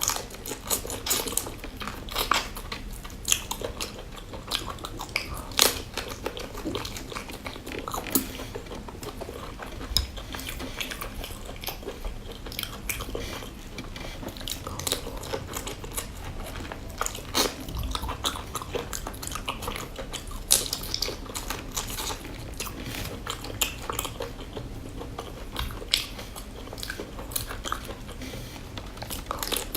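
A person chewing and biting seafood close to the microphone, with frequent irregular crisp crunches and clicks.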